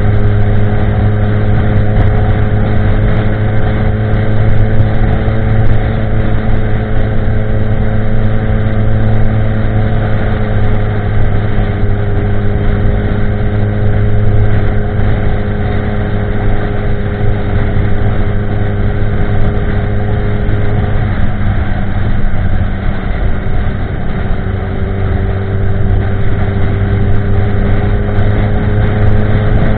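2016 Kawasaki ZX10R's inline-four engine running through a Pro Race GP-R2 de-cat carbon-fibre exhaust at a steady cruise, a continuous drone at near-constant revs. About two-thirds of the way through, the pitch drops as the throttle eases, then climbs back a few seconds later.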